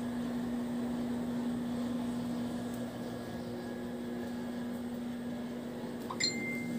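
Steady low electrical hum with a faint hiss, with a brief high-pitched tone a little after six seconds in.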